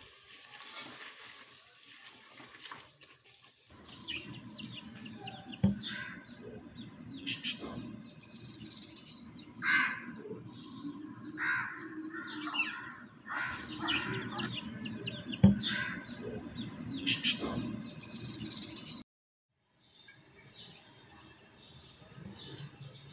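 Birds chirping in the background over a low steady hum, with two sharp knocks about ten seconds apart.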